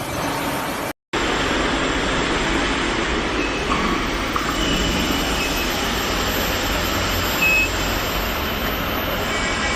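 Steady, loud industrial noise with a low rumble, most likely workshop machinery, dropping out for a moment about a second in. A few short, thin high tones sound in the middle.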